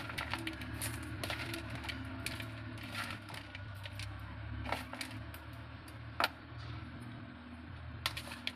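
Metal spoon scraping and tapping against bowls while dry Maggi bhel of noodles and puffed rice is scooped and served, giving irregular clicks, the sharpest about six seconds in, over a steady low hum.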